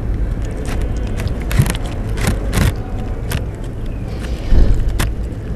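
Kittens eating from a plastic dish: scattered short, crisp chewing clicks and crunches over a steady low rumble, with a dull low thump about four and a half seconds in. The sound cuts off suddenly at the end.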